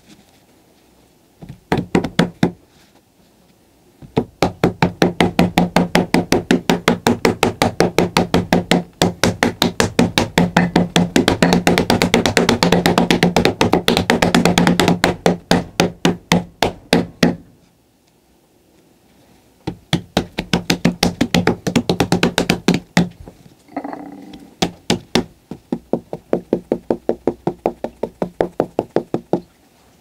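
Hands patting a cloth spread over a flat board used in pottery making, with quick taps several a second. A short burst comes first, then long runs of patting broken by two short pauses.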